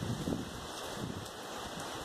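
Strong hurricane wind rushing through trees and rustling their leaves, with gusts buffeting the microphone in low rumbles that are strongest near the start.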